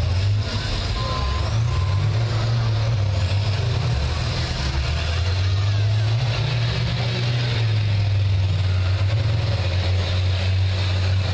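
Several school bus engines running together, a loud, steady deep rumble.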